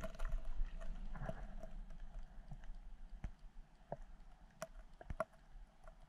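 Underwater river sound picked up by a submerged action camera: a muffled low rumble with scattered sharp clicks and ticks, which grow sparser and fainter.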